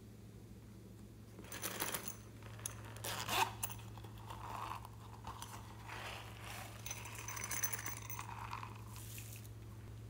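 Hands handling a silicone watermelon coin purse and scattering small clay watermelon slices onto slime in a glass bowl: an uneven run of crinkly, crunchy rattles and clicks, loudest about three and a half seconds in, over a low steady hum.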